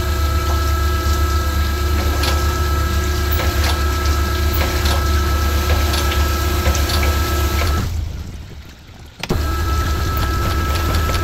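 Sunnen CK10 power-stroking cylinder hone running, its stone head stroking up and down in an engine block's cylinder bore under a spray of honing oil: a first couple of strokes to check the cylinders. A steady deep hum with a constant whine drops away about eight seconds in and starts again about a second later.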